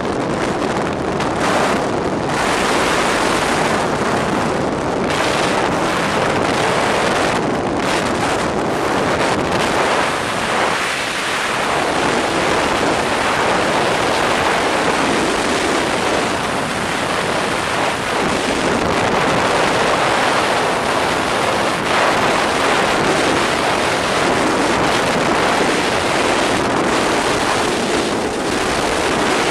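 Loud, steady road noise from a fast-moving vehicle: an even rush of tyres on asphalt and wind on the microphone, swelling and easing slightly.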